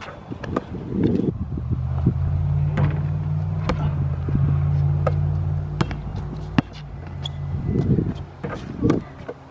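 A motor vehicle's engine runs with a steady low hum for several seconds, starting about a second and a half in and fading near the end. Sharp knocks of a basketball bouncing and striking the rim and backboard come at scattered moments throughout.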